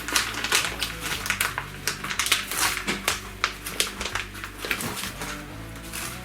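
Homemade slime being kneaded and squeezed by hand, giving a dense run of sticky, wet clicks and crackles, with quiet background music beneath.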